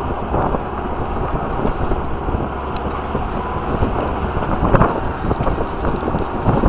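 ATV running as it drives along, with wind noise on the microphone.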